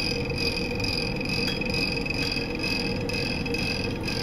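Magnetic stirrer's motor running steadily, a constant whirring hum with faint light ticks, as it stirs the beaker during the reaction.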